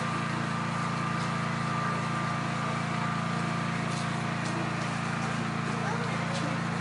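Steady low hum of a running motor, unchanging throughout, with a few faint clicks.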